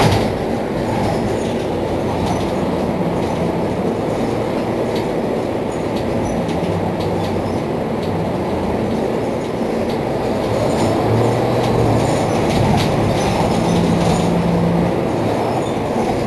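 Mercedes-Benz Citaro C2 city bus running: a steady engine and drivetrain drone whose low tones shift in pitch a few times as it changes speed.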